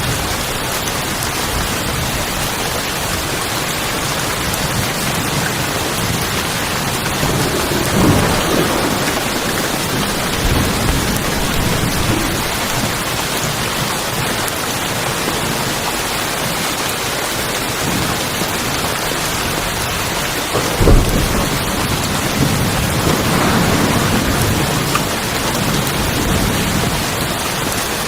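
Rain falling on a tin roof, an even steady hiss, with several low rumbles of thunder swelling and fading; the loudest and sharpest comes about two-thirds of the way through.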